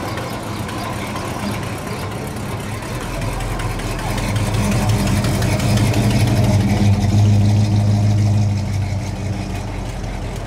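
Classic cars cruising slowly past at low speed, engines running near idle. One engine's steady low hum swells from about three seconds in, is loudest a little past the middle, then fades again near the end.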